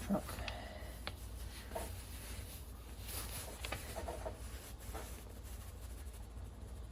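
Tire plug insertion tool pushing a sticky string plug into a tire puncture: faint, scattered rubbing and small clicks of hand handling over a steady low rumble.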